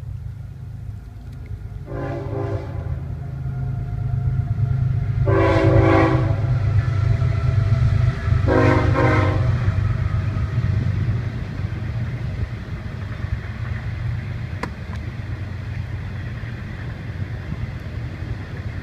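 Freight train passing: its horn sounds three blasts, each about a second long, over the steady low rumble of the train, which is loudest in the middle and eases off over the second half.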